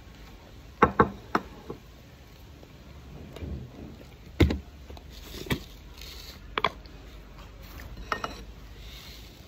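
Close-up eating sounds of someone chewing fried carne de sol, with sharp mouth smacks and crunches: a quick cluster about a second in, then single ones every second or so.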